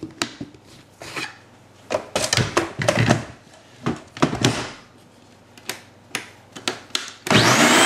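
Scattered knocks and clatter of kitchen things being handled on a countertop, and near the end a short, loud rushing noise that rises in pitch.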